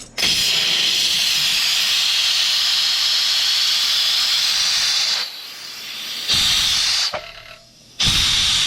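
Compressed air from a Craftsman oilless air compressor tank, pressurised to about 40 psi, hissing out through its new bottom drain valve. The hiss runs strongly for about five seconds, stops, then comes twice more in shorter bursts as the valve is opened again.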